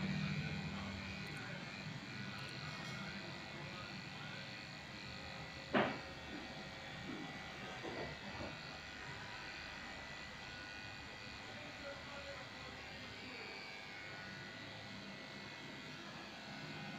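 Corded electric dog-grooming clipper running steadily as it trims a shih tzu's head and face. There is a brief sharp sound about six seconds in, the loudest moment.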